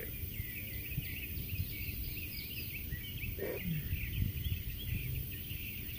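Small birds chirping steadily in the background over a low outdoor rumble, with one brief low sound about three and a half seconds in.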